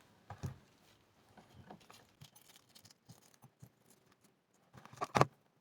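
Faint crackling and small clicks of a hard-boiled egg's shell being peeled off by hand, with a sharper click about five seconds in.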